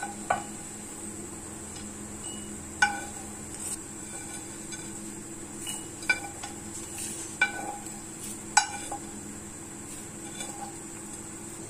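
Metal spoon scraping dry-roasted whole spices across a nonstick frying pan and into a glass jar. The spoon clinks sharply against the pan and jar about half a dozen times, each clink ringing briefly.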